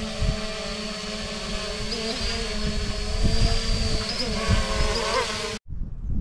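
Holybro X500 V2 quadcopter's motors and propellers humming steadily in a hover, the pitch briefly wavering a few times from about two seconds in. The hum cuts off suddenly near the end, followed by wind rumbling on the microphone.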